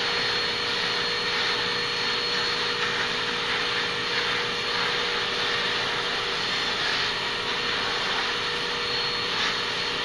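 Vacuum cleaner running steadily, with a constant motor whine over the rush of air, as its hose and brush nozzle are drawn over a dog's coat.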